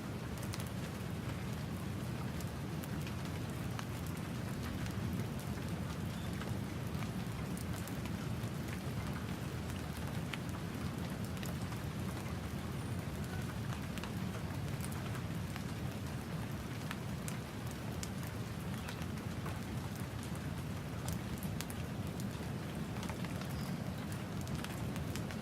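Steady light tropical rain falling, with scattered single drops ticking close by, over a constant low rumble of nearby ocean surf.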